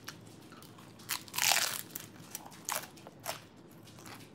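A bite into a taco followed by crunchy chewing. The loudest crunch comes about a second and a half in, with a few smaller crunches after it.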